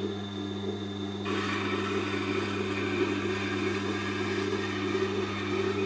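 Tormek sharpening machine's motor running with a steady hum, and from about a second in a knife blade rubbing along the turning wheel adds a hiss.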